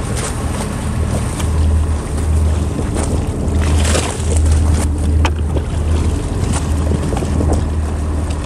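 Fishing boat's engine running steadily at sea, with wind buffeting the microphone.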